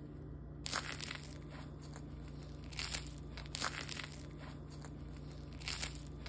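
Crisp baked pizza crust crackling and crunching as it is torn apart by hand, in about four short bursts.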